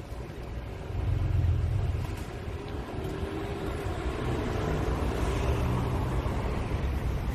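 Road traffic on a city street: cars driving past with a steady low rumble, loudest about a second in.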